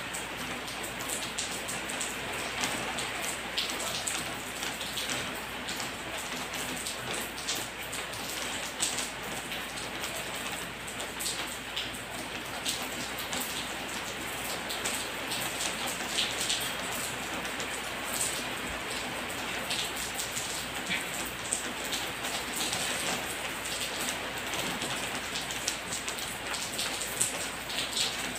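Steady rain: an even hiss with many small, scattered drop ticks.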